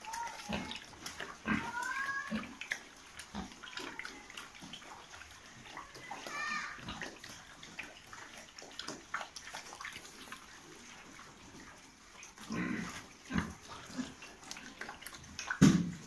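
Domestic pigs grunting and snuffling, with a few short high gliding calls in the first seconds. Scattered knocks and thumps run through it, the loudest near the end.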